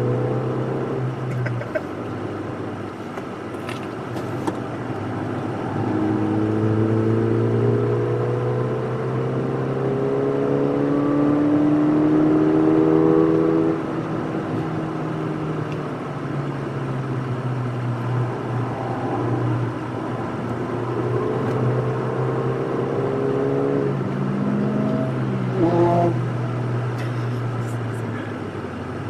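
Ford Fiesta ST's turbocharged 1.6-litre four-cylinder heard from inside the cabin, pulling hard on track. The engine note climbs steadily and drops away suddenly about halfway through as the driver lifts off, then climbs again and drops once more shortly before the end.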